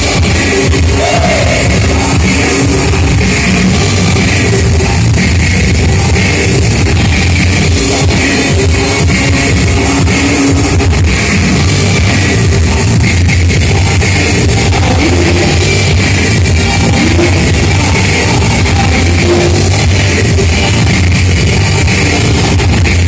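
Loud rock music with electric guitars and a drum kit, with some singing.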